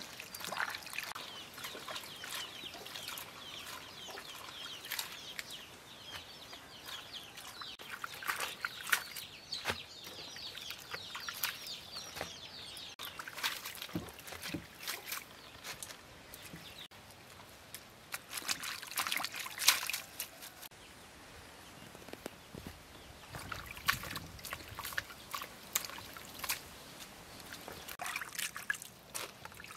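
Water splashing and trickling in a plastic basin as vegetables are washed by hand, with repeated small splashes and drips as dripping leaves are lifted out into a colander. Birds chirp in the background, mostly in the first half.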